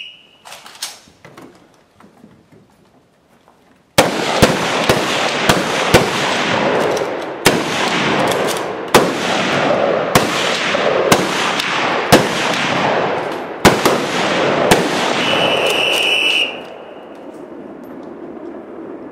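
Rifle fire from a whole relay of shooters: after the tail of a short whistle blast and a few quiet seconds, many overlapping shots ring out with heavy echo for about twelve seconds. A long whistle blast near the end, which signals that the exposure time is up, ends the firing, and the echo fades.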